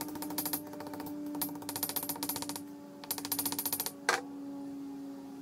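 Rapid light hammer taps on the metal hub of a wire fan guard lying on an anvil, in three quick runs of about a dozen taps a second, then one louder knock just after four seconds. A steady low hum runs underneath.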